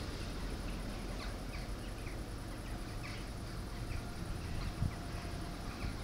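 Small birds chirping in short, irregular calls over a steady low background rumble, with one brief low thump about five seconds in.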